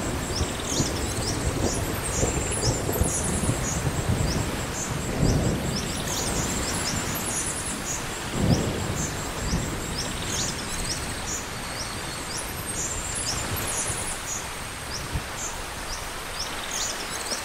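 Rain and thunderstorm ambience: a steady hiss of rain with low rolls of thunder, the strongest about five and eight and a half seconds in, and high chirps repeating throughout.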